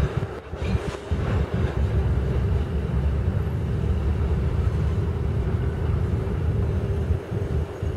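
Freight train's covered hopper cars rolling past at a grade crossing: a steady low rumble of steel wheels on the rails.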